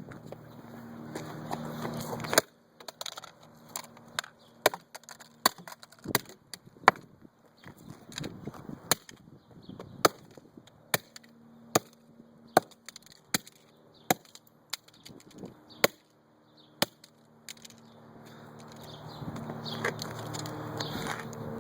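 Sledgehammer smashing a small digital scale: more than a dozen sharp blows, a little under a second apart, starting a couple of seconds in and stopping several seconds before the end. A low steady hum is heard before and after the blows.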